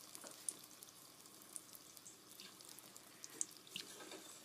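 Faint sizzle of rice-flour batter balls deep-frying in hot coconut oil: a steady light hiss with scattered small pops and crackles.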